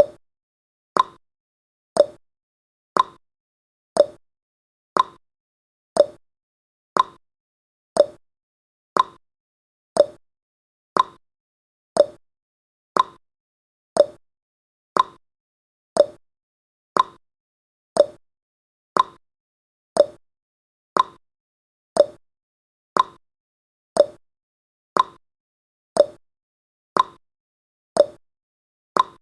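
Countdown timer's clock-tick sound effect: one short, sharp tick every second, evenly spaced.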